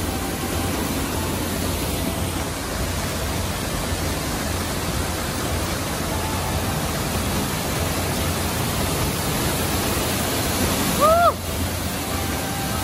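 Waterfall and mountain stream rushing steadily over rocks. Near the end a single short pitched sound rises and falls.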